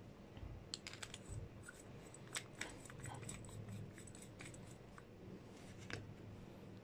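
Faint, scattered clicks and light metal taps as the parts of a Cometa Lynx air rifle regulator and its test gauge are handled and fitted together.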